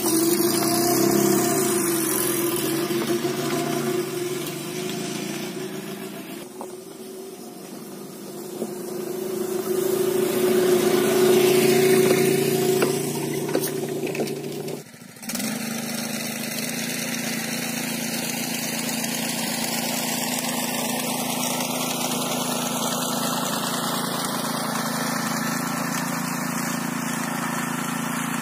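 An engine running that fades away and then grows louder again. After a sudden break, a walk-behind VARI sickle bar mower's small engine runs steadily.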